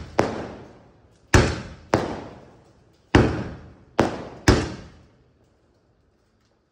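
Multi-shot aerial firework cake (Sony 'Terminator 3' sky shot) firing: six sharp bangs at uneven spacing over about four and a half seconds, each dying away in an echo over about a second, then a pause of about a second and a half.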